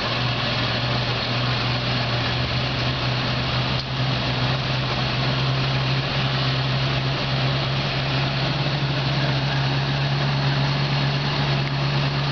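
Vehicle engine idling steadily with a constant low hum.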